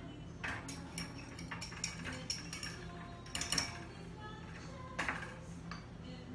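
Metal butter knife clinking and scraping against ceramic ramekins as baked bread bowls are loosened and popped out: a run of separate sharp clinks, the loudest about three and a half and five seconds in.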